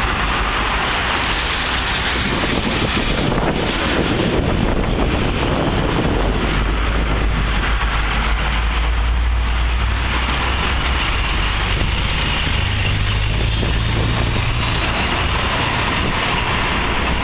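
Steady city street noise of passing motor traffic, with a heavy engine's low rumble growing stronger about halfway through.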